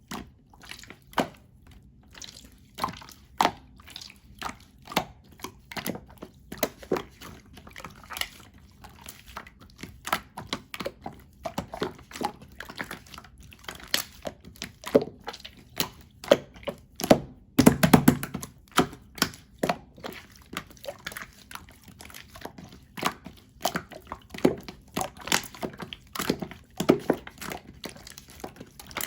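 Very runny, over-melted cheese slime being handled: a constant stream of small sticky pops and clicks as it is stretched and pressed, with a louder squelching flurry about eighteen seconds in.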